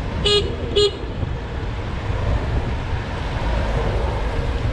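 Two short vehicle-horn toots about half a second apart, over a steady low rumble of street traffic.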